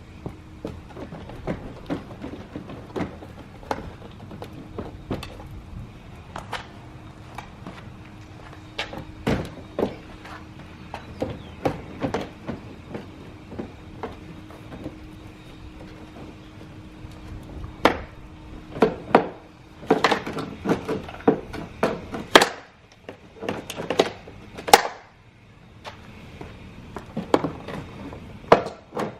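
Irregular clicks, knocks and clunks of hand tools and loosened parts as the hex bolts are taken out of a car's front splitter, busiest in the last third, with a faint steady hum under the first half.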